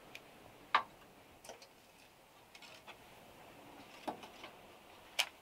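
Thin sticks of kindling clicking and knocking against a small metal wood stove as they are fed into it by hand: a scattering of sharp clicks, the loudest about a second in and just before the end.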